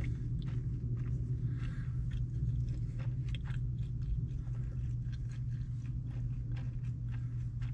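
A man chewing mouthfuls of orange chicken and noodles, with soft wet chewing sounds and small clicks, over a steady low hum inside a parked car.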